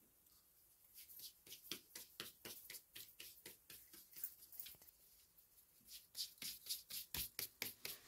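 Hands patting and rolling soft bread dough into balls on a floured tray: a run of quick soft pats and slaps, about four a second, pausing briefly midway and coming back louder and quicker near the end.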